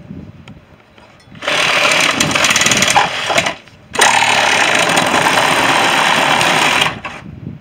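A power tool running in two bursts, about two seconds and then about three seconds, with a short pause between.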